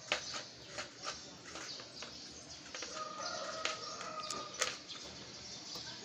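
A rooster crows once about three seconds in, one held call lasting over a second. Scattered clicks and scrapes of a tool digging soil out of a terracotta flowerpot run underneath.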